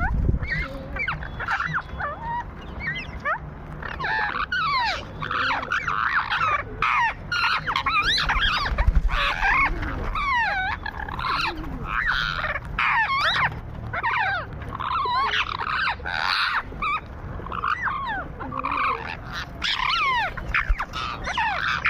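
A flock of parrots chattering and squawking, many quick calls overlapping throughout.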